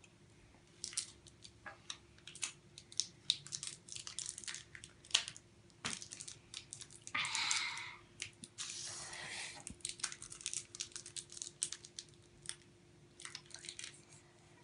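Crinkly plastic wrapper of a hard sour candy being picked at and unwrapped by hand: a run of small crackles and clicks, with two longer rustling tears a little after halfway.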